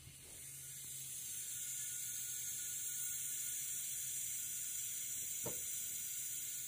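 Steady high-pitched hiss of compressed air flowing out of a small 3-gallon oilless air compressor's tank into a tire, the tank pressure falling as it equalizes with the tire. A faint low hum runs underneath, with a small click about five and a half seconds in.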